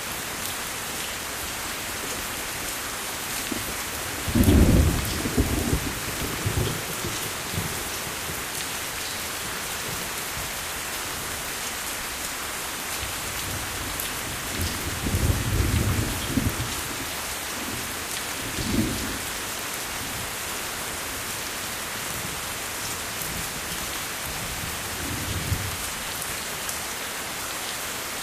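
Steady heavy rain hissing on a surface, with low rolls of thunder rumbling through it: a loud one about four seconds in, a longer one around the middle, and fainter ones after.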